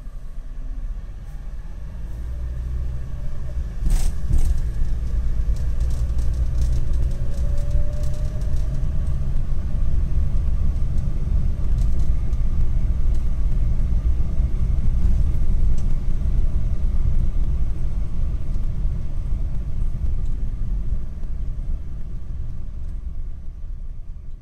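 Car driving slowly, heard from inside the cabin: a steady low rumble of engine and tyres, with a sharp knock about four seconds in and a faint rising tone a few seconds later.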